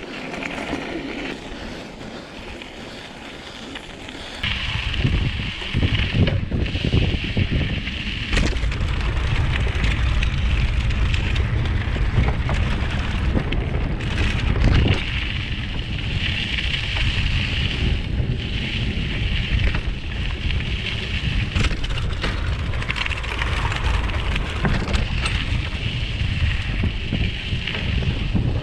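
Mountain bike riding on a dirt trail, heard through a GoPro's microphone: wind buffets the mic with a heavy rumble, over tyre noise and scattered knocks and rattles from bumps. The wind rush starts about four seconds in and then runs steadily.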